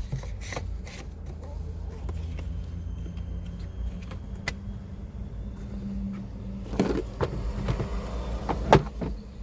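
Plastic rustling and sharp clicks as a new cabin air filter is slid into its housing and its cover handled, the loudest click near the end, over a steady low hum.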